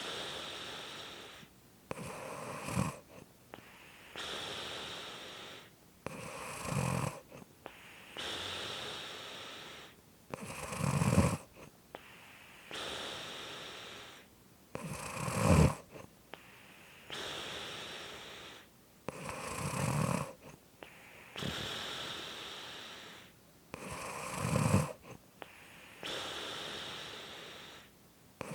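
Snoring in a slow, even rhythm, about seven breaths, one every four to five seconds. Each is a long hissing breath that ends in a short, loud, low rasp.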